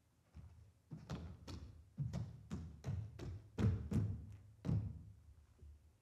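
An uneven series of about a dozen short percussive knocks, two or three a second, starting about half a second in and fading out near the end, with the loudest strokes in the middle.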